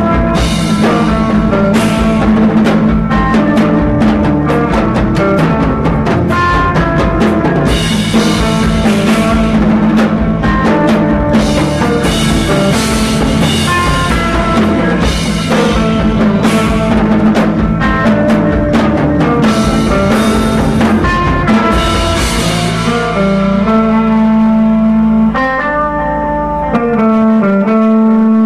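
Post-rock band playing live: drum kit with cymbals and electric guitars together at full volume. About 23 seconds in the drums drop out, leaving guitar notes ringing over a held low note.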